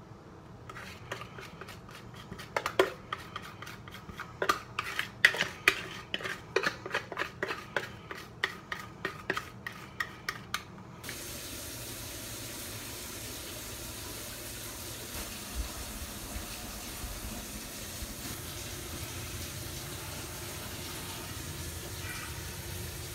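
A utensil knocking and scraping against a mixing bowl while batter is scraped out of it: sharp clicks about two a second for some ten seconds. They stop abruptly and give way to a steady hiss.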